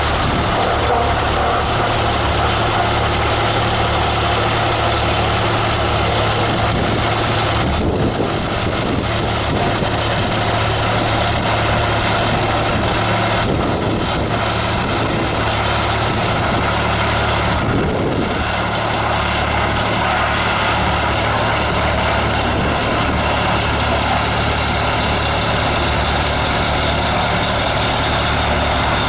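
Vibratory compactor roller running steadily, its engine and vibrating drum giving a constant low, rapidly pulsing throb as it compacts a layer of field rocks.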